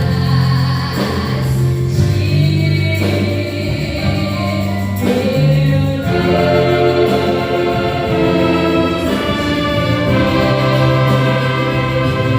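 Gospel worship band playing, with several voices singing together over sustained chords and a bass line that changes note every second or so.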